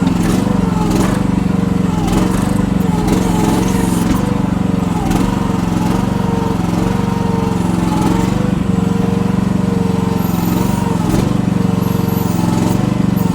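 Chinese mini excavator's engine running hard under load while it climbs a soft bank, its pitch dipping and recovering again and again as the tracks and hydraulics are worked. Occasional knocks from the machine are heard.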